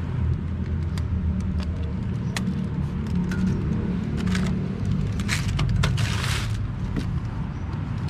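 Plastic hose fittings and extension tubes of a Bosch GAS 15 vacuum cleaner being handled and fitted together: scattered sharp clicks and a few short clattering scrapes, the longest between about five and six and a half seconds in. Under it runs a steady low rumble.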